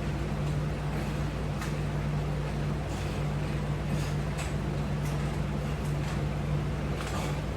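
A steady low hum of room or machine noise, with faint short hisses about once a second.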